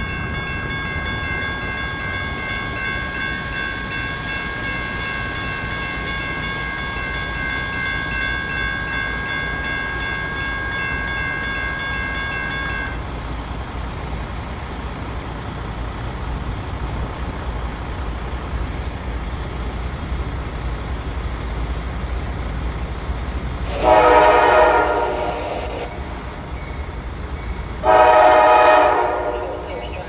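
Horn of an approaching CSX ES44DC diesel freight locomotive: one long blast held for about thirteen seconds, then two loud blasts of about two seconds each near the end as the train draws close. A low engine and rail rumble runs underneath throughout.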